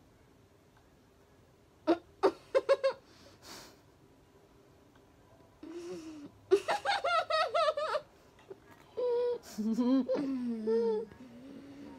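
Girls giggling and laughing in bursts: a quick run of giggles about two seconds in, a longer burst of laughter just past the middle, then more laughing voice sounds near the end.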